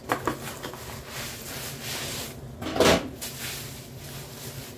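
A cardboard product box being opened and handled: a couple of sharp clicks from the flaps just after the start, then a louder scraping rustle about three seconds in as a glass oil bottle is slid out of the cardboard.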